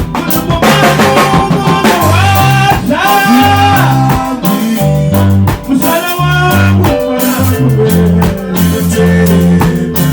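Band music: guitar lines over a stepping bass line and drum kit keeping a steady beat.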